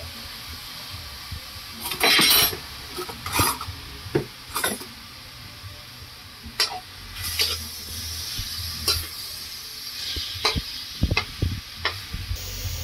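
Metal spatula scraping and knocking against a wok while stirring chunks of pork, in irregular strokes over a steady hiss. The loudest is a half-second scrape about two seconds in.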